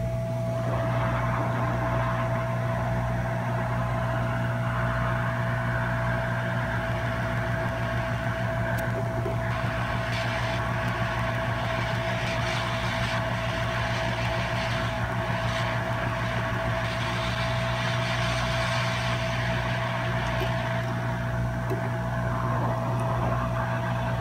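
Hot air rework station blowing on a laptop logic board to melt the solder under a capacitor being removed. A steady hiss of air runs over the station's constant blower hum, setting in about a second in and fading just before the end.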